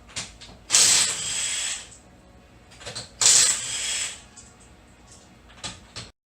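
A power wrench running in two bursts of about a second each, undoing a bolt on the Corvette's rear suspension, with a few light clicks of tools between.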